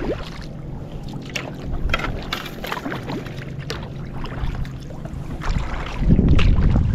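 Kayak paddle strokes: the blades dip and splash in the water at an uneven pace, with water dripping off them. Wind rumble on the microphone grows louder near the end.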